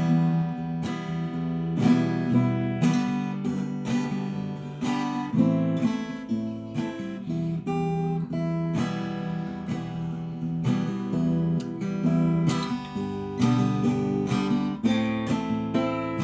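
Acoustic guitar played fingerstyle, plucked melody and bass notes mixed with frequent percussive knocks on the guitar's body.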